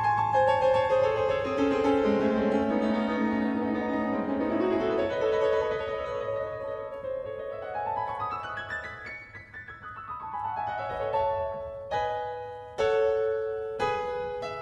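Background piano music: held notes stepping downward, then a quick rising run of notes, and a few struck chords near the end.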